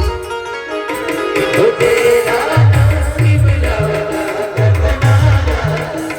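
Band music: a melody line over a deep drum beat whose hits fall in pitch, in repeating groups. The drums pause at first and return with the melody about a second in.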